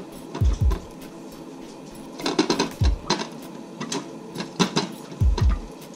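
Fishing reel being cranked, drawing line up through the steam hole of a saucepan lid from a spool in warm water: irregular clicking and rattling with a few dull knocks.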